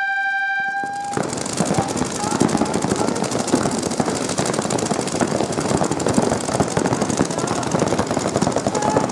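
A steady electronic signal tone, like a buzzer or horn, sounds for about the first second and cuts off. A dense din of crowd noise from the competition venue follows, with voices shouting, clapping and clatter.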